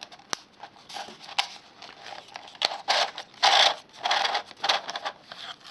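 Cardboard wing being pushed through slots cut in a thin plastic bottle: plastic and cardboard rubbing and crinkling in irregular bursts, with a few sharp clicks, loudest about three seconds in.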